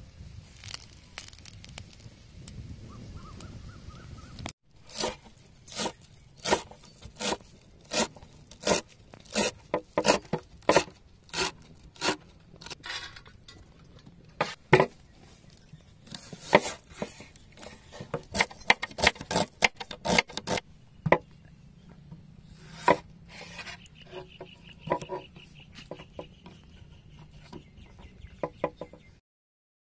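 Large kitchen knife chopping on a wooden cutting board: sharp knocks about two a second, with short pauses, after a few seconds of low background hiss.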